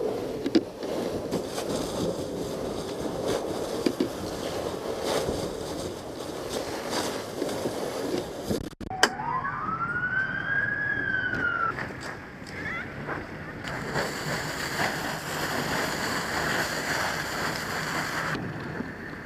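Steady rushing noise with scattered knocks, then a single emergency-vehicle siren wail that rises and falls once over about three seconds, with the rushing noise going on beneath it.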